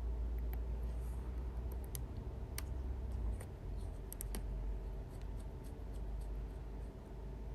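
Scattered light clicks and ticks at irregular intervals from small precision tools and tiny screws being handled on an iPhone 11 Pro Max during reassembly, over a steady low hum.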